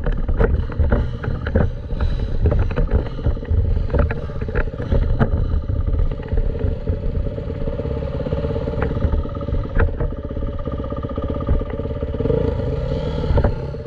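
Dirt bike engine running under way, with frequent sharp knocks and clatter.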